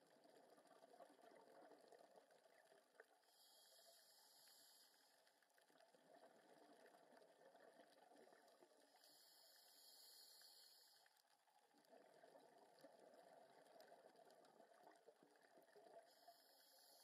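Faint underwater scuba breathing: a scuba diver's regulator gives a short burst of hiss about every six to seven seconds, with a crackly bubbling that swells and fades in between.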